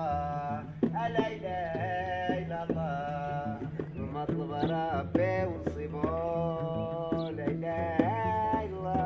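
Gnawa music: a man's chanted singing, with long held and bending notes, over the deep plucked bass notes of a guembri, a three-string skin-covered lute.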